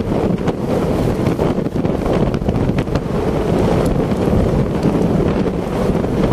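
Heavy wind buffeting the microphone of a camera on a moving bicycle: a steady, loud rumbling noise with a few faint clicks.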